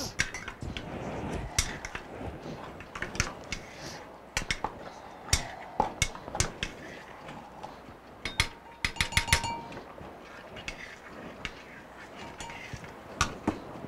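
Light, irregular clicks and clinks of a measuring spoon and a small wooden spatula against a ceramic mixing bowl and a cardboard baking soda box, as baking soda is measured out. A quick run of clinks with a brief ring comes about eight to nine seconds in.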